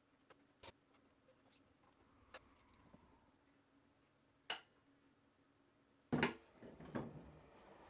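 Light taps and clicks of tools and wood being handled on a workbench: three faint sharp clicks spread over the first few seconds, then a few louder knocks about six and seven seconds in.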